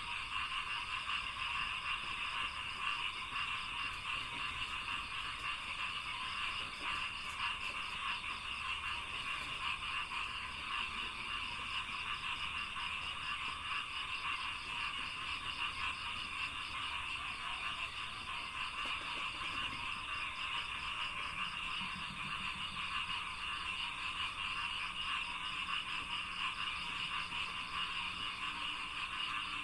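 Dense, steady chorus of many frogs calling, a continuous mass of rapid pulsing croaks with no break.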